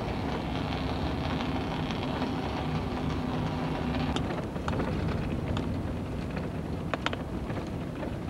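Steady road and engine noise of a moving car, heard from inside the car, with a few faint clicks about four and seven seconds in.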